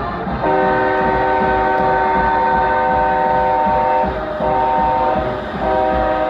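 Multi-tone stadium air horn, train-horn style, sounding in three blasts: one long blast of about three and a half seconds, then two shorter ones. It signals the football team running out onto the field.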